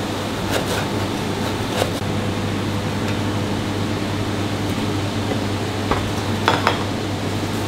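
A knife slicing a crusty olive-bread baguette on a plastic cutting board, with a few sharp taps in the first two seconds and light knocks near the end as the slices are set down on a baking tray, over a steady ventilation hum.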